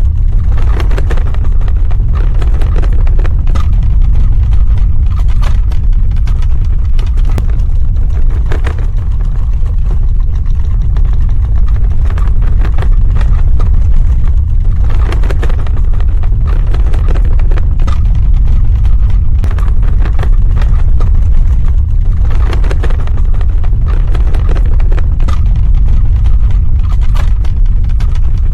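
Earthquake sound effect: a loud, continuous deep rumble with scattered crackles throughout.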